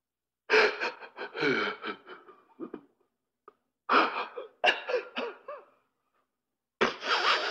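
Laughing sound effects spliced one after another: three bursts of a person's laughter, each stopping abruptly into dead silence before the next starts.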